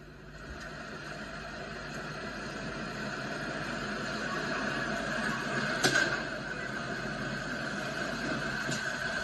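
Steady rushing roar of a large building fire, growing gradually louder, with a sharp crack about six seconds in and two fainter cracks near the end.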